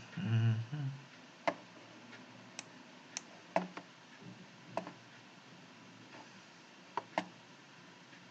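Computer mouse clicks: about seven sharp single clicks spread irregularly over several seconds. A brief low voiced hum comes just at the start.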